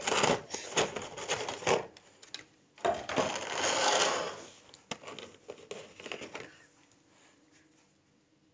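Plastic blister tray of a hair trimmer kit crackling and rustling as it is handled and the trimmer is pulled out, with a few sharp clicks. It is loudest in the middle and goes quiet for the last couple of seconds.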